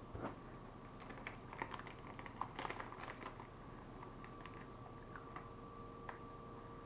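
Faint crisp crackling clicks from eating a Hershey's Gold Peanuts & Pretzels bar, a caramelized creme bar with crunchy peanut and pretzel bits, while handling its wrapper. The clicks come thickest in the first three and a half seconds, then thin out to a few scattered ticks over a faint steady hum.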